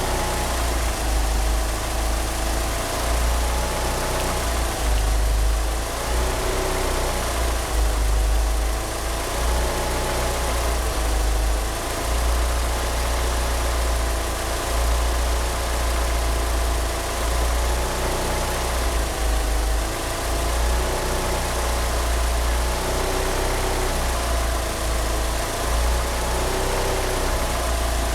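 A 1G Mitsubishi Eclipse GSX's turbocharged 2.0-litre 4G63 four-cylinder idles roughly, with an uneven, lumpy beat, on oversized 850cc injectors. A wavering squeal from the slipping power-steering pump belt runs over it.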